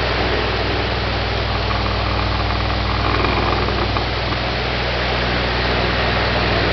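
Oscillating electric fan running close by: a steady rush of air over a low, even motor hum.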